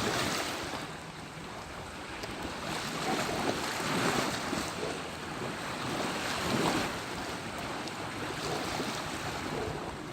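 Steady rushing noise that swells and eases a little, like wind buffeting the microphone.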